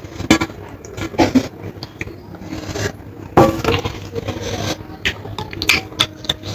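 Close-up eating sounds: irregular clicks and smacks of chewing, with scraping of food on a plate.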